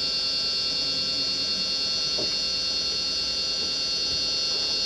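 Wood lathe running steadily, its electric motor giving a constant hum with a high whine as it spins the workpiece.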